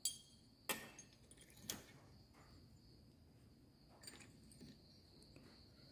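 Near-silent workshop with a few light metallic clicks: three sharp ones in the first two seconds and a fainter one about four seconds in, from the steel gear shafts and gears of a Bajaj Pulsar gearbox being handled and seated in the engine case. A faint steady high tone runs underneath.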